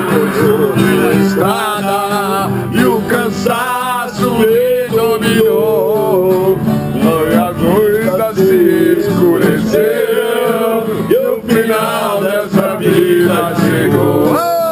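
A man singing while strumming an acoustic guitar, holding long wavering notes.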